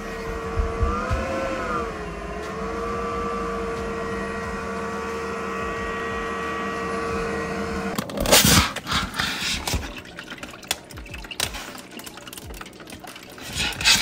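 Inline duct fan on an adjustable speed controller running with a steady hum; its pitch rises and dips briefly about a second in, then holds steady. After about eight seconds the hum stops and irregular knocks and handling sounds follow.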